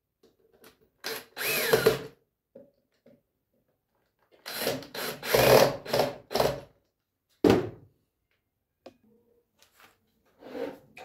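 Cordless drill-driver driving screws into wood in several short bursts, its motor pitch rising as each one spins up. The bursts come about a second in, in a run from about four and a half to six and a half seconds in, and once more about seven and a half seconds in.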